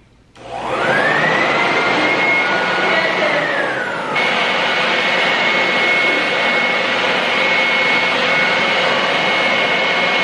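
Handheld electric leaf blower starting up and blowing air into a giant climb-in balloon to inflate it. Its whine rises as it spins up about half a second in, sags briefly around four seconds in, then holds steady and loud.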